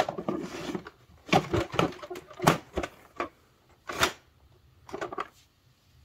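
Hard plastic dirt cup of a Hoover WindTunnel Twin Chamber bagless upright vacuum being handled and fitted back onto the vacuum body: a brief scraping at first, then a series of sharp plastic knocks and clicks.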